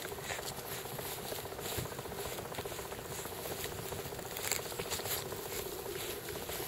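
A pit bull puppy gnawing and tugging at a dry fibrous husk, its teeth making scattered scratchy crackles and clicks, over a steady low hum.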